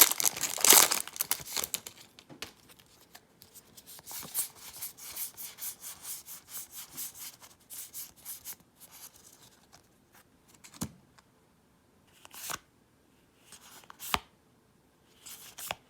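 A foil Magic: The Gathering booster pack wrapper crinkling and tearing open, followed by trading cards rustling and sliding as they are handled, with a few short sharp card snaps near the end.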